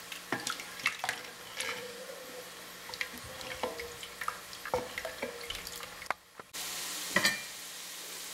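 Wooden spoon stirring and scooping cooked lentils in their broth in a stainless steel pot: wet sloshing with many light knocks of the spoon against the pot. About six and a half seconds in, after a short drop, a steady sizzle of chorizo, sausage and diced vegetables frying in a pot begins.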